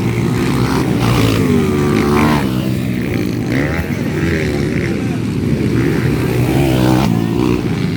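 Several 200 cc motocross bikes racing, their engines revving up and down as they accelerate and shift, several engine notes overlapping.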